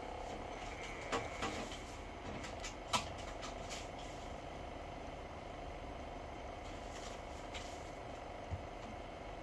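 Portable EVD player's disc drive whirring steadily as it reads and plays a DVD, with a few sharp clicks in the first four seconds and one more near the end.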